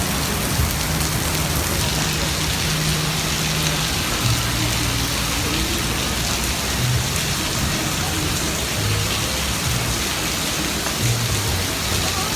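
Torrential thunderstorm rain pouring down steadily, a dense even hiss of rain hitting the pavement and a street heavy enough to flood.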